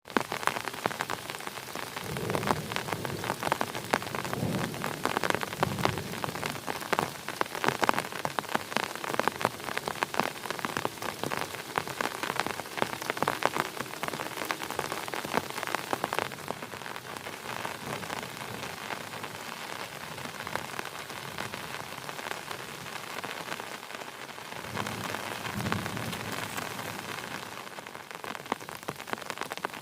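Heavy rain falling, a dense patter of many individual drops, hardest in the first half. A few brief low rumbles come a few seconds in and again near the end.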